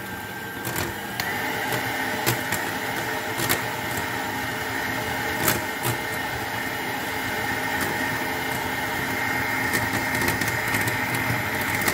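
Electric hand mixer running steadily, its whisk beaters turning through a liquid egg-yolk batter in a glass bowl, with a high motor whine and a few sharp clicks.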